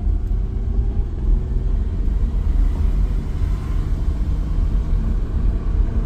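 2002 Acura TL Type-S's V6 engine revving under acceleration in first gear, its pitch slowly climbing over a heavy low rumble, while the automatic transmission fails to shift up out of first.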